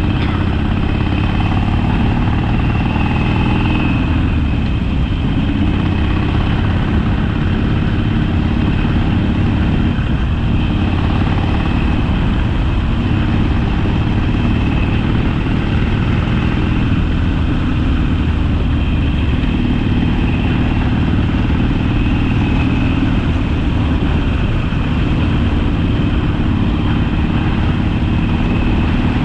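Harley-Davidson Sportster's air-cooled V-twin engine running steadily, heard from the bike as it is ridden.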